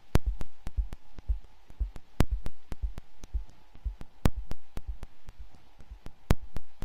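Minimal electronic music: a sparse, regular pattern of sharp clicks, a louder one about every two seconds, over soft low thuds and a faint steady tone.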